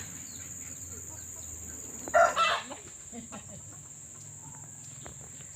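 A chicken gives one short, loud call about two seconds in, over a steady high-pitched drone of insects.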